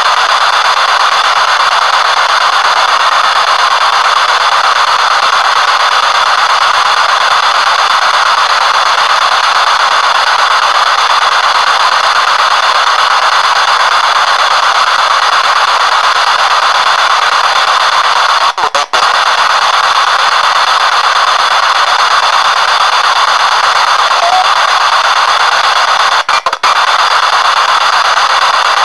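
P-SB7 spirit box sweeping through radio stations, heard through an external speaker: loud, steady radio static with two brief dropouts, one about two-thirds of the way in and another near the end.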